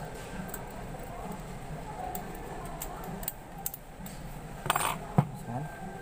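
Small metal parts of a doorknob lock clicking and clinking as they are handled and fitted back together, with a brighter ringing clink and a sharp click close together near the end.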